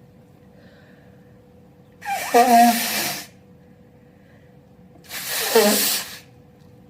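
A man's two loud, vocalized, wet open sneezes, the first about two seconds in and the second about three seconds later. Each starts with a short voiced cry that bends in pitch and breaks into a spraying hiss lasting about a second.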